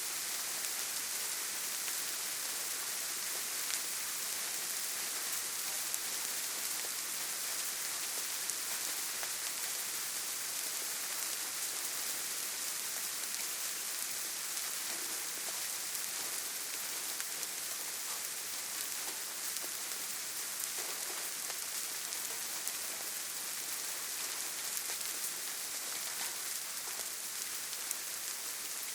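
Steady rain, with a hiss and scattered sharper drop ticks now and then.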